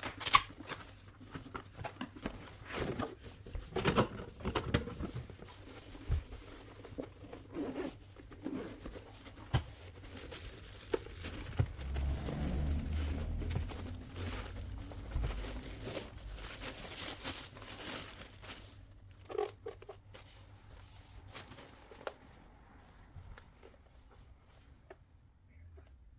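Handling noises from the car vacuum / air compressor kit and its packaging: scattered clicks and knocks with zip-like and tearing sounds, and a dull low rumble for a few seconds around the middle. The motor is not running.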